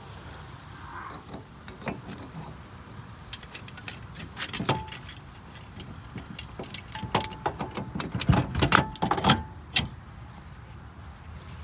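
Metal parts clinking and knocking as a new wheel hub assembly is worked into place on the wheel, a few of the knocks ringing briefly. The knocks are scattered at first and come in a loud cluster about eight to ten seconds in.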